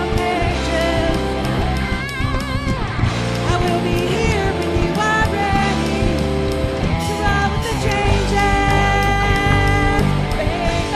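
Live rock band playing, with a woman singing lead over electric guitar and drums.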